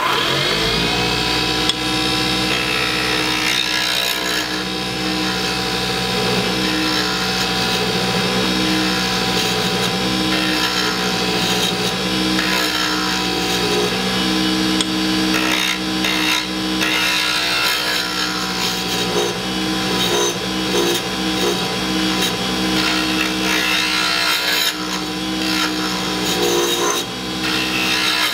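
Small wood lathe spinning up at the start, then running steadily with a motor whine while a turning tool roughs out a bottle-stopper blank of Alumilite cast resin and maple burl. The cutting noise comes and goes as the tool works the spinning blank.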